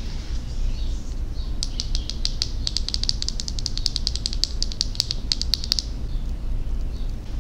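Long acrylic fingernails tapping rapidly on a wooden toy cosmetic stick: a fast, irregular run of sharp clicks starting a couple of seconds in and lasting about four seconds. A steady low rumble lies underneath.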